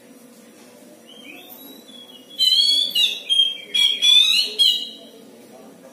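Oriental magpie-robin (kacer) singing: a few faint whistled notes, then a loud run of warbling, gliding whistled phrases from a little after two seconds in, lasting under three seconds.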